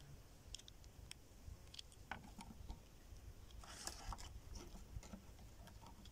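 Faint clicks and rustles of plastic toy skeleton pieces being handled and pressed together, with a short cluster of rustling about four seconds in.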